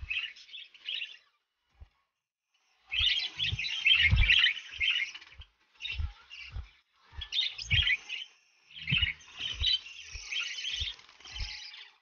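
Small pet parrots chirping and chattering in bursts, with a short lull about a second in, over soft low thumps.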